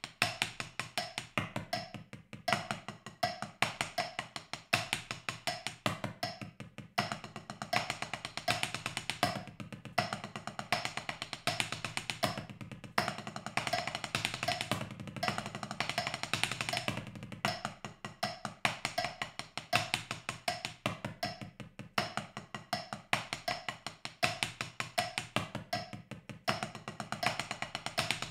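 Drumsticks playing fast six-note sticking patterns on a four-zone practice pad: a rapid, unbroken stream of wooden taps that moves between zones of higher and deeper pitch, with louder accented strokes recurring at regular intervals.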